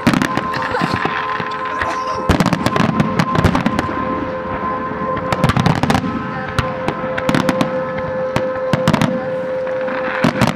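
Aerial fireworks bursting in the night sky, in several volleys of sharp bangs and crackles, over a steady tone at one pitch.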